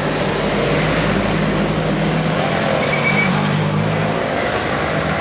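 Road traffic on a busy town street: a motor vehicle's engine hums close by over the hiss of passing traffic, and the engine note drops away about four seconds in.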